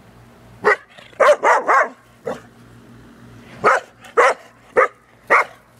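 A dog barking back in short, sharp barks in protest at being sent to bed: one bark, a quick run of three, then four single barks about half a second apart.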